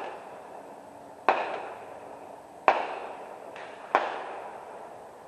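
Gunshots fired at a regular pace about 1.3 seconds apart, four in all, each a sharp crack followed by an echoing tail.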